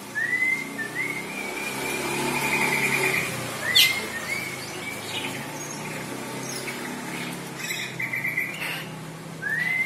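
Caged songbird calling: repeated rising whistles and buzzy rattling trills, with one sharp loud note about four seconds in, over a low steady hum.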